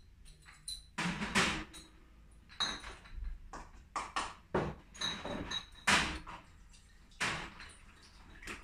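Glass beer bottles being handled, with irregular clinks, knocks and short rattles, a few of them ringing briefly.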